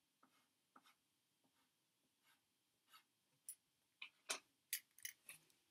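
Faint scratching strokes of coloured chalk on paper: a few sparse strokes at first, then a quicker, slightly louder run in the second half.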